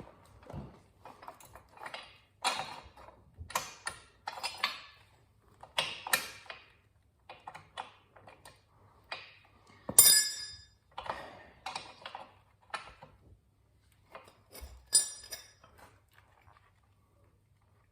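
Metal tools and motorcycle parts clinking and knocking in irregular short strikes as the rear wheel is reassembled, with one sharp ringing metallic ping about ten seconds in.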